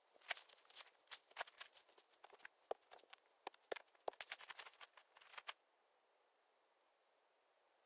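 Dry fallen leaves crackling and rustling faintly under a person's footsteps and movements as he walks through leaf litter. The crackling stops about five and a half seconds in, leaving near silence.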